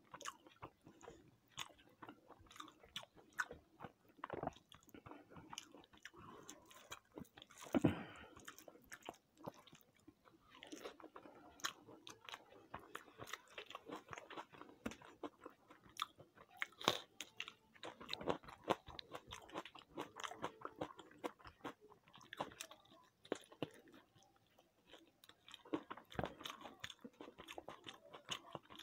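Close-miked chewing and biting of food, a dense run of small clicks and smacks, with one louder bite about eight seconds in.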